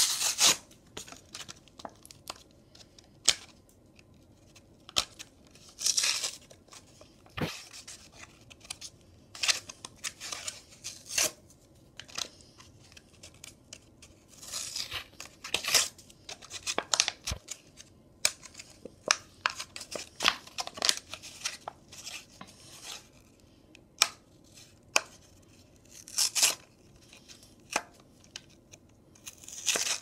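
A Hot Wheels blister card being torn and peeled open by hand: irregular bursts of tearing cardboard and crinkling plastic, with sharp clicks and rustles.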